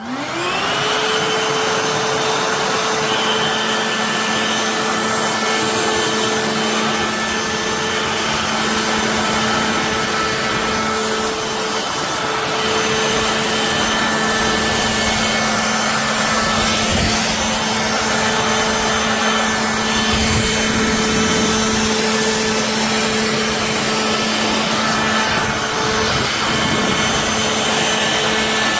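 Cordless stick vacuum cleaner (Hoover H-FREE 100) switched on, its motor spinning up within the first second, then running steadily with a constant hum and rushing suction hiss.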